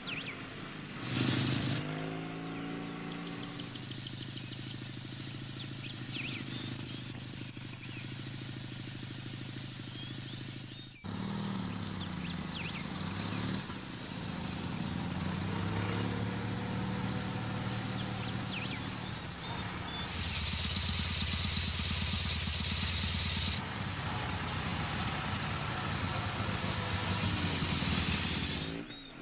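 Quad bike (ATV) engine running with a steady hum. It starts with a short loud burst about a second in, then shifts pitch as it revs up and down, with an abrupt change partway through.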